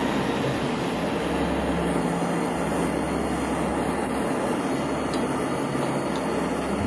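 Jeweller's gas torch burning as its flame heats a gold piece: a steady, even hiss with a low hum beneath it.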